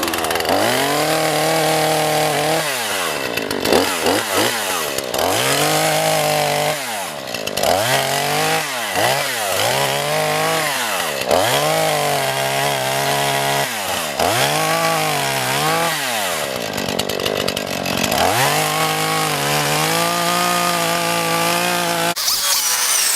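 Two-stroke gasoline chainsaw cutting wood at high revs. Its pitch sags under load and climbs back again and again, and it cuts off suddenly near the end.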